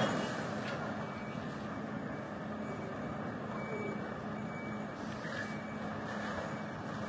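Articulated lorry's diesel engine running steadily as the truck moves slowly across the icy yard, over a steady outdoor hiss.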